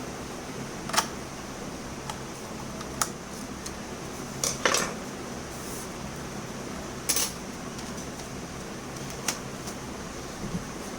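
A handful of short, sharp clicks and clinks of small hard objects being handled, spaced irregularly a second or two apart, over a steady background hum.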